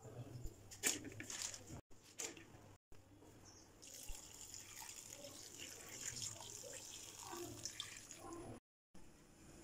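A few crisp crackles and knocks as dry instant-noodle cakes are set into a metal pot. Then, from about four seconds in, a thin stream of hot water pours steadily onto the noodles in the pot, stopping abruptly near the end.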